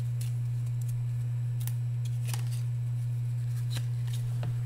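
Stiff cardboard baseball cards sliding and flicking against one another as a stack is leafed through by hand: a few short, light flicks spread through, over a steady low hum.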